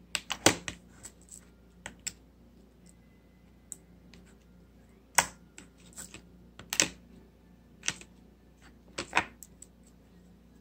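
Irregular sharp clicks and taps of small plastic items being handled and set down on a tabletop, about a dozen scattered through, the loudest near the start and in the second half.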